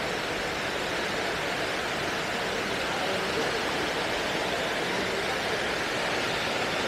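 Steady rushing of water being released through the dam's open gates, a constant roar with no breaks.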